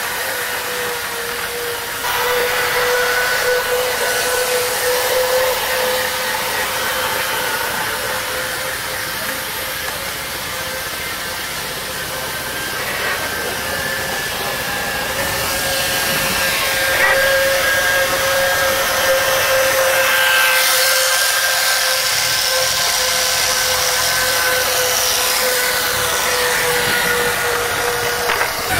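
Small electric motors of model cars running around a slot-car style track, giving a steady high whine that rises slightly in pitch about halfway through.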